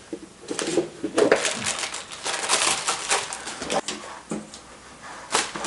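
A metal candy tin being opened and handled: clicks and scrapes of the lid and tin, with crinkling of the wrapping inside.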